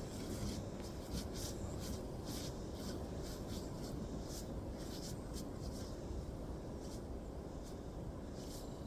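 Footsteps crunching in deep snow, a short scrunch about once a second, over a steady low rumble of wind on the microphone.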